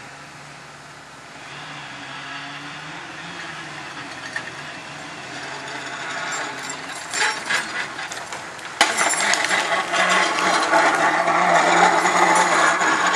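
A MAXWALD small cableway carriage running along its skyline cable toward the camera. Its rattling and clattering grows louder, then turns suddenly into a loud, dense clatter about nine seconds in as it passes close by. A steady low hum runs underneath.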